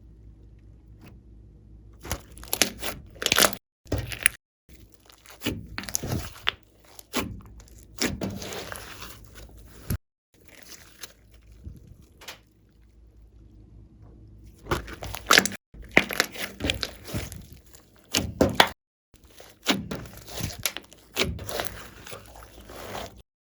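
Glossy slime with clay mixed in being squeezed, stretched and pressed by hand, crackling and squelching in irregular bursts, broken a few times by sudden short silences.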